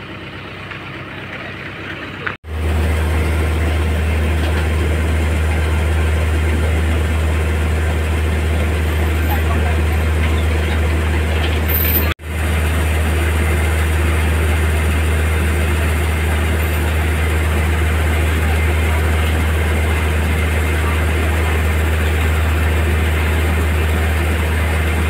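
Tractor diesel engine idling, a steady low rumble that breaks off for an instant twice.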